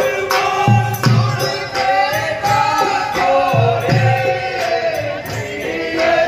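Rajasthani rammat folk music: voices singing long held, bending notes over a beat of low hand-drum strokes and sharp cymbal strikes.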